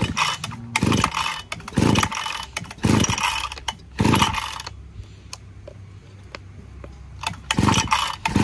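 Recoil pull-starter of a Mitsubishi TL261 26cc two-stroke brush-cutter engine yanked about once a second, the cord whirring as the engine turns over without firing. There are five quick pulls, a pause of about three seconds, then two more near the end.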